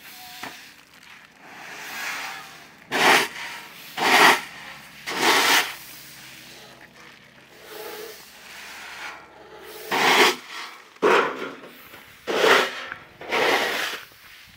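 Sun-dried shelled corn kernels being scooped off concrete with a wooden box scoop: short, rasping scrapes of the scoop through the grain, each about half a second, three in a row and then, after a pause, four more.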